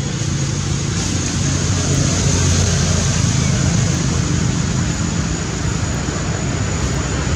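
Steady outdoor background noise: a low rumble with a hiss over it and a thin, steady high-pitched whine above.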